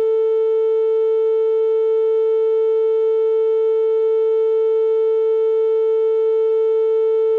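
Steady electronic test tone, a single mid-pitched note with faint overtones, held unbroken at constant loudness: a synthesized 'ear unclogging' frequency.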